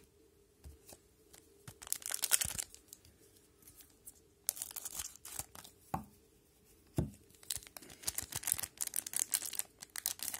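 Plastic wrapper of an Upper Deck MVP hockey card pack being torn open and crinkled, in several spells of rustling, with two soft thumps in the middle.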